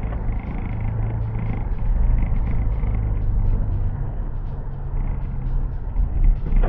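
Car engine and tyre noise while driving, heard from inside the cabin: a steady low hum whose pitch shifts slightly about four seconds in.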